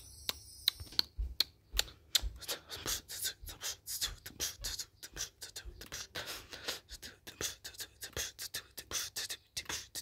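A person making rapid, irregular clicking and puffing mouth sounds close to the microphone, several a second, in the manner of beatboxing, with a few low thumps in the first half.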